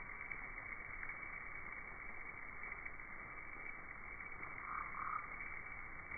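Slowed-down sound of an emerging Mexican free-tailed bat swarm: a steady, dense croaking chatter, with two brief swells about five seconds in.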